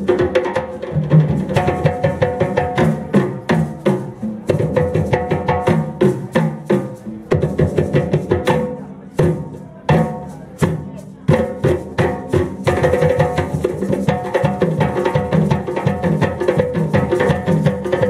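Ensemble of hand drums, djembes and tall barrel drums, struck with bare hands in a fast interlocking rhythm. About eight seconds in the playing thins to a few scattered strikes, then the full ensemble comes back in about eleven seconds in.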